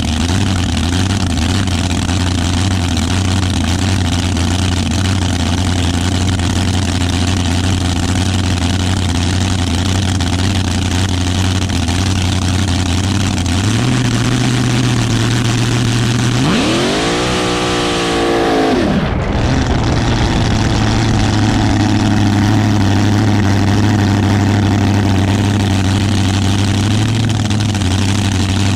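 Supercharged V8 of a front-engine dragster idling with a steady note; about sixteen seconds in it revs up sharply for about two seconds and falls back to idle, as in a burnout, then idles on.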